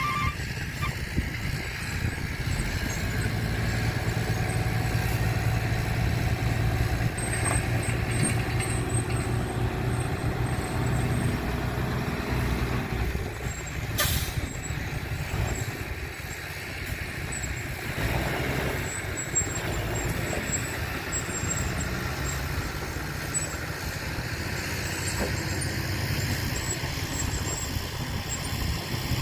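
Heavy truck engine running, a steady low rumble that swells and eases, with one sudden sharp sound about halfway through.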